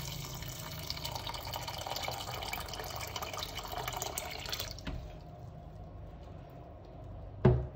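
Water pouring from a jug into a pressure cooker of soaked kidney beans, stopping about five seconds in. A single sharp knock comes near the end.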